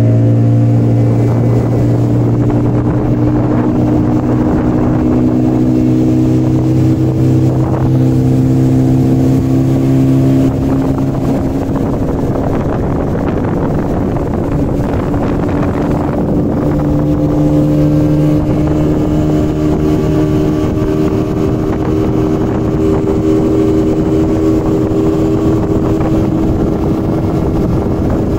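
Motorboat engine running steadily under way. Its low hum eases and the overall level drops slightly about ten seconds in.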